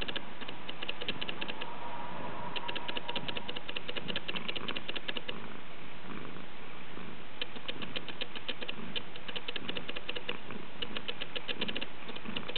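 Mother cat purring, over runs of rapid ticking from a camcorder's autofocus motor constantly hunting for focus in the quiet room; the ticking comes and goes in stretches of a few seconds.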